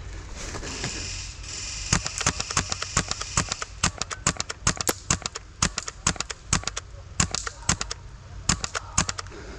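Airsoft guns firing in a firefight: a rapid, irregular string of sharp cracks, several a second, starting about two seconds in and stopping shortly before the end.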